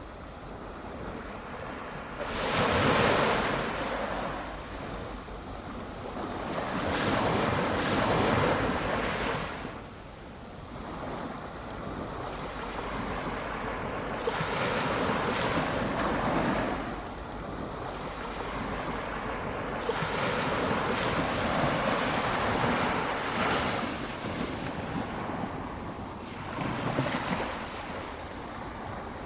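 Small ocean waves breaking gently on the beach, one surge of surf every four to six seconds, each swelling and then fading away.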